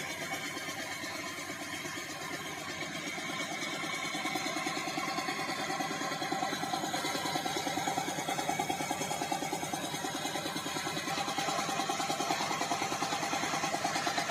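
An engine running at a steady speed with a rapid, even pulsing beat that grows a little louder a few seconds in, typical of the engine that powers a sawmill.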